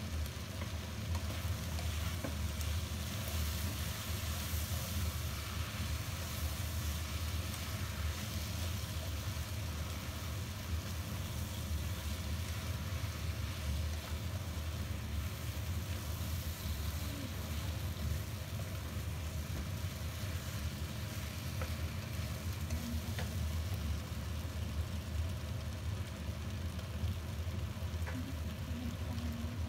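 Udon noodles, prawns and peppers sizzling in a hot wok as they are tossed and stirred with a spatula, over a steady low hum.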